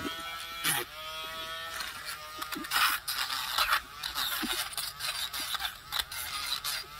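Pen-style electric rotary tool whining steadily, its sanding bit grinding burrs off the edge of a cured UV resin pendant. The grinding noise comes in uneven bursts through the middle, when the bit is pressed harder against the resin.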